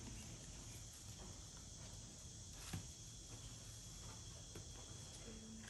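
Faint, steady high-pitched insect chorus, with one sharp click nearly three seconds in.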